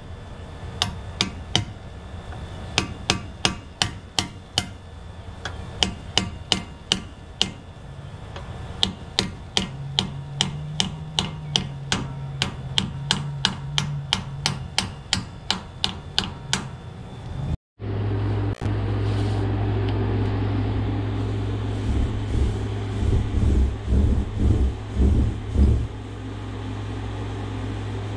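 Hammer striking metal, a long run of sharp, regular blows about two to three a second, while working on a truck's rear differential and axle parts. After a break it gives way to a steady low hum with a quick series of heavier thumps.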